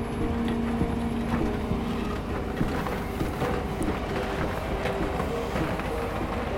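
Steady running of airport ground vehicles and aircraft engines on the apron, a droning hum whose lowest tone fades about two seconds in, with scattered light clicks throughout.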